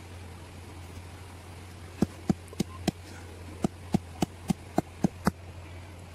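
A knife chopping on a wooden board: eleven sharp knocks at about three a second, a run of four and then, after a short pause, a run of seven.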